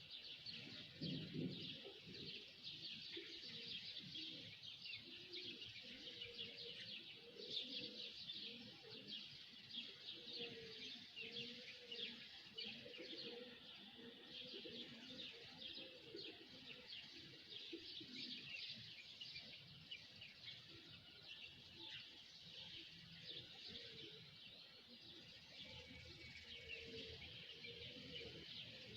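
A flock of small birds chirping and twittering together, a quiet, dense chorus of overlapping short calls with no break, with lower, rounder notes weaving underneath.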